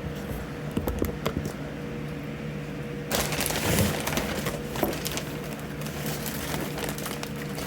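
Packing materials being handled: light rustling and scattered clicks and knocks, getting louder and busier about three seconds in, over a steady background hum.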